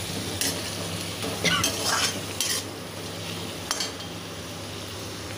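Potatoes and tomatoes sizzling in mustard oil in an iron kadhai while a metal spatula stirs them, scraping and clinking against the pan a few times in the first four seconds over a steady sizzle.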